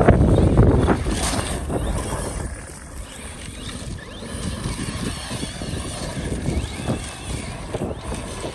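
Arrma Fireteam 6S brushless RC car driving off-road, loudest in the first second or so, then quieter and further off.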